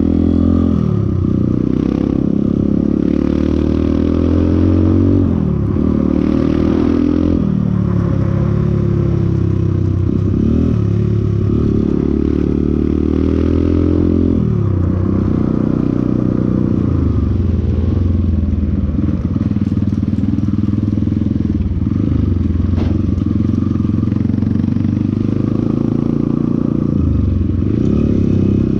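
Motorcycle engine running under way, its pitch repeatedly climbing under throttle and then dropping back, several times over.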